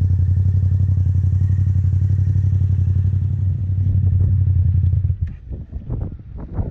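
Motorcycle engine running with a steady, deep drone. About five seconds in the drone stops and gives way to uneven, gusty rumbles and knocks.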